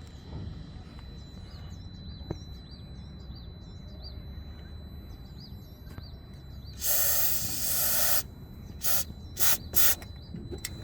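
Aerosol chain lube spraying from a high-pressure canister onto the scooter's drive pulley: one long hiss of about a second and a half, then three short bursts.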